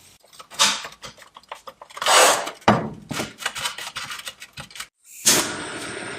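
Irregular knocks, clunks and scrapes of hard parts being handled, with a few louder swells, the loudest about two seconds in.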